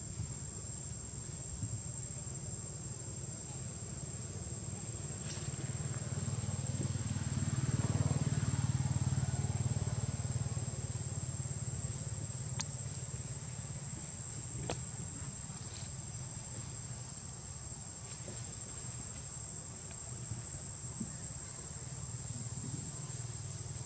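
Insects droning in one steady high note, over a low rumble that swells and fades about a third of the way in.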